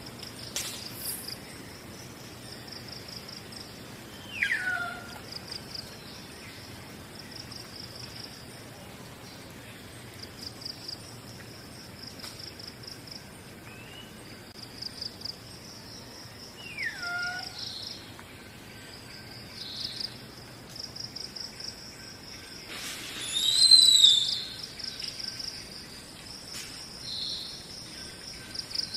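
Forest ambience: an insect trilling in short pulsed bursts over and over, with bird calls. Two downward-sliding whistles come early and midway, and a louder arching call comes a little before the end.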